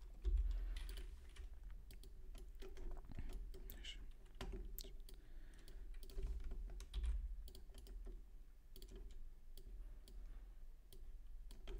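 Computer keyboard typing and mouse clicks: irregular short clicks, over a steady low hum.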